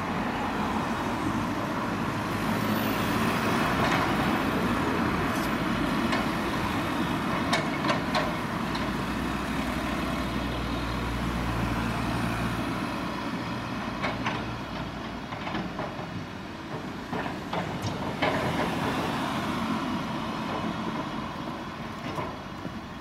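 Cat tracked excavator's diesel engine running steadily as it digs, with several sharp knocks from the bucket and boom working the soil, a pair near the middle and more further on.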